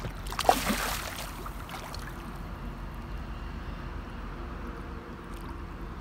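A short splash and slosh of pond water about half a second in, as a koi and a turtle stir the surface at the bank, then a steady low outdoor background.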